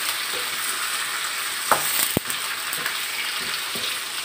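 Chicken pieces, large red onion and ginger sizzling in hot oil in a wok as they are stirred with a wooden spatula. There is a steady hiss, with a couple of sharp knocks about halfway through.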